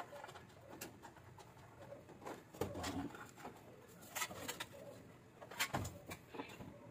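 Light clicks and knocks of a screwdriver and the aircon's metal control box being handled during rewiring, with a low cooing bird call about three seconds in and a dull thump near the end.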